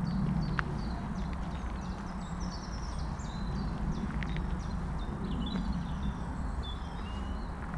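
Footsteps on a gravel woodland path, with several small birds singing short high chirps and trills overhead.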